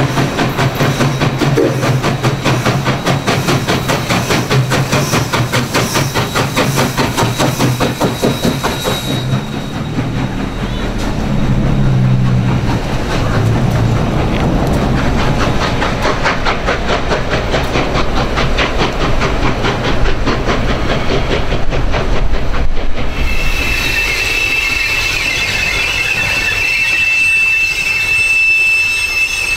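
Southern Railway 630, a 2-8-0 steam locomotive, working past with a rapid, even beat of exhaust and running gear. About two thirds of the way through, a single high steady squeal sets in and holds, such as wheel flanges make on curved track.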